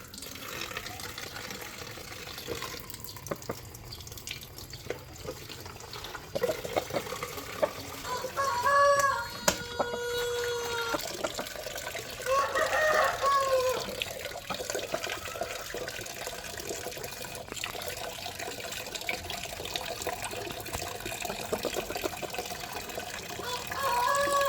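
Water running and splashing as a Saigon fighting chicken is given its bath, with a rooster crowing twice, about a third of the way in and again about halfway through, and starting again near the end.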